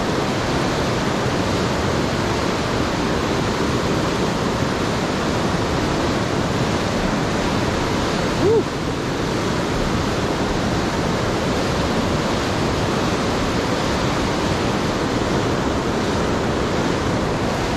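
Steady rush of fast river water pouring below a dam. A short pitched squeak comes about halfway through.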